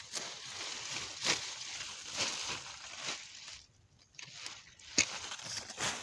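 Handfuls of leafy green plants being grabbed and pulled by hand close to the microphone: leaves and stems rustling and tearing in strokes about once a second, with a brief lull in the middle.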